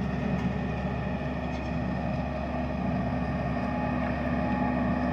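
A vehicle engine running steadily at an even speed, its pitch unchanging.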